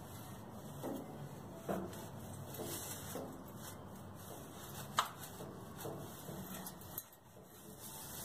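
Faint scraping and knocking of a push broom's bristles and wooden back against wooden boards leaned on a wall, in a few scattered soft strokes, with one sharper click about five seconds in.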